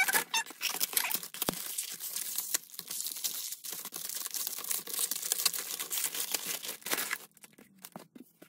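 Paper mailing envelope tearing and a clear plastic bag crinkling as a package is unwrapped by hand, with many sharp crackles. The rustling stops about a second before the end.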